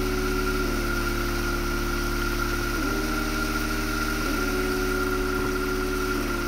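Background music with sustained low chords that slide to a new pitch every second or two, over the steady rush of a mountain stream.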